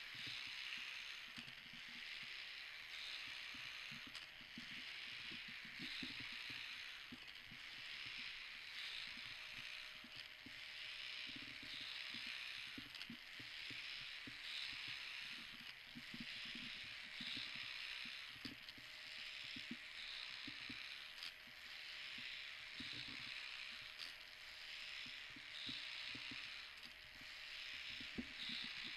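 Faint whirring and clicking of a small crawling robot's motors and gears, swelling and easing about once a second with a few soft knocks.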